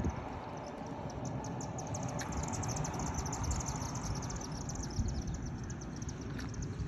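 Outdoor evening ambience: a steady low rumble with a high, fast trill of ticks, about ten a second, running through most of it.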